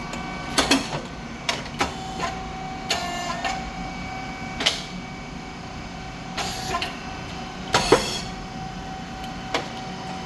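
SYP5804T rice cake machine running: a steady hum from its motor and hydraulic pump, with a held whine, broken by scattered sharp mechanical clicks and knocks. The loudest knock comes about eight seconds in.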